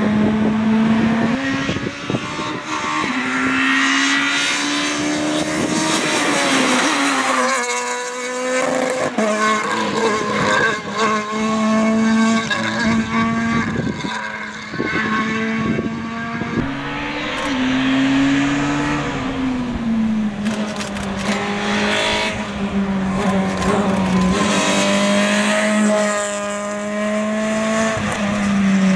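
Rally car engines running hard at high revs as cars race through a stage one after another. The pitch climbs and drops with throttle and gear changes.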